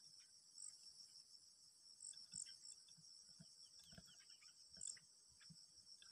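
Faint, steady high-pitched insect chorus, with a few soft low knocks, the clearest about four seconds in.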